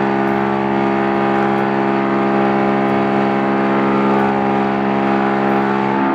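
Steady, loud machine hum made of many held tones over a noisy rush, heard in a reverberation chamber.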